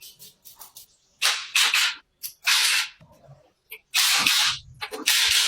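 Hand rubbing or scraping strokes with an abrasive on the old motorcycle's parts, like sanding or wire-brushing off rust and paint. The strokes come irregularly, a few faint ones first, then louder ones from about a second in.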